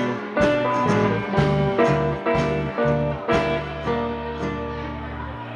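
Live blues band: guitars playing plucked notes and chords over a held low bass. The music grows quieter over the last second or so.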